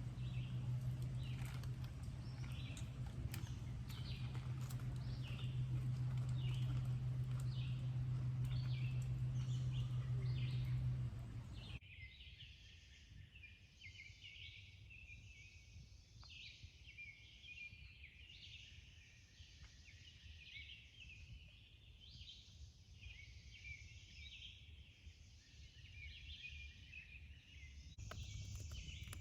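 Wild birds singing, many short overlapping chirps and calls. For the first dozen seconds they sit over a steady low hum and background noise. After a sudden cut the hum is gone and a dense chorus of birdsong continues alone.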